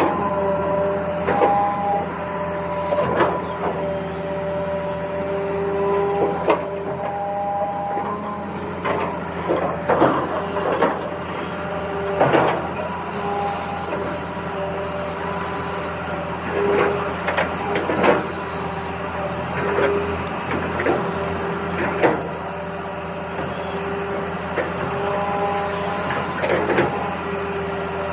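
Battery-powered toy vehicle's small electric motor and plastic gears whirring, with steady tones that step between a few pitches and scattered plastic clicks and knocks.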